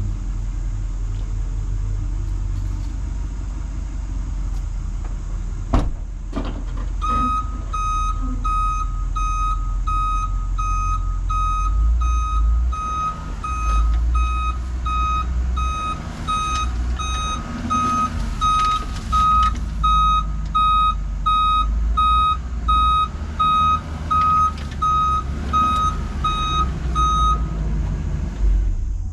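Mason dump truck backing up: its engine running steadily with a single clunk about six seconds in, then the backup alarm beeping at an even rate until shortly before the end.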